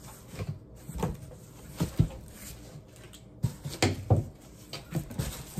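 Cardboard shipping box flaps being pulled open and folded back, giving a series of irregular knocks and scuffs of cardboard.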